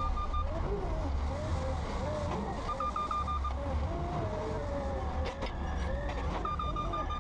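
Propane clamp-truck forklift's engine running with a steady low rumble as it drives, while a warning beeper sounds three short bursts of rapid high beeps: at the start, about three seconds in, and near the end.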